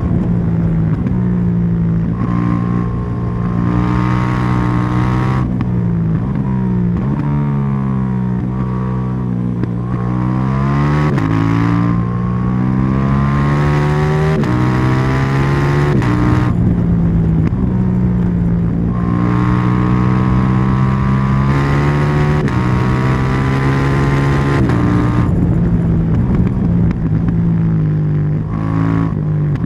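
KTM 790 Duke's 799 cc parallel-twin engine and exhaust under riding load, pulling up through the revs and dropping sharply at each gear change, again and again, with stretches where the revs ease down and climb back.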